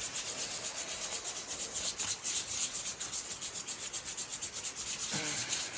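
600-grit sandpaper rubbed in quick back-and-forth strokes over the sandblasted steel hood of a Mk4 VW Jetta, smoothing the rough blasted spots before paint.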